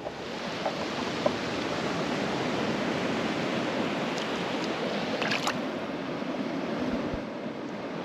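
Shallow sea water washing over sand at the water's edge: a steady rush of surf.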